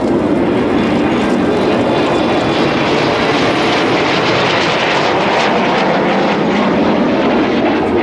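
Jet noise from a Kawasaki T-4 jet trainer's twin turbofan engines as it flies past: a steady, loud rushing sound that grows hissier through the middle.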